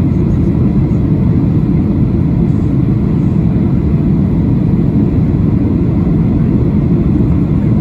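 Steady low rumble inside the cabin of a Boeing 737-800 in descent: its CFM56-7B engines and the air rushing past the fuselage.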